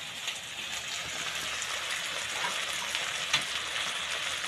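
Sliced hotdogs and ground meat frying in a wok: a steady sizzle with faint crackles, and a single light tap about three and a half seconds in.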